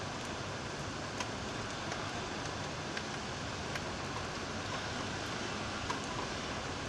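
Heavy typhoon rain falling: a steady hiss with a few scattered sharp drip ticks.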